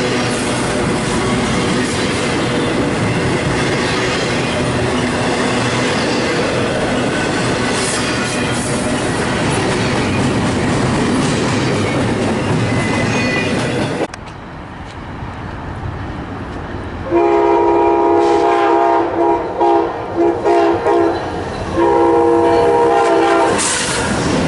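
A diesel train rumbles past with its wheels clattering over the rails. It cuts off suddenly about halfway through. After a few seconds a locomotive's multi-note chime horn sounds loudly, in a long blast, a string of short breaks and another long blast, and the noise of an oncoming train rises near the end.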